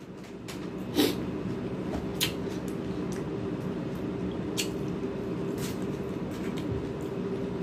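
Mouth sounds of a man eating fried tilapia with his fingers: wet chewing with a few short smacks and clicks scattered through, the clearest about a second in. A steady low hum runs underneath.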